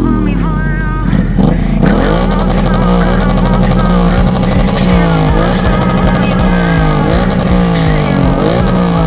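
Cruiser motorcycle engine being revved while stationary. The revs are held steady for a couple of seconds, then blipped over and over, each rise sharp and each fall slower.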